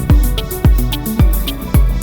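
Electronic background music with a steady kick drum about twice a second, off-beat hi-hats and sustained chords.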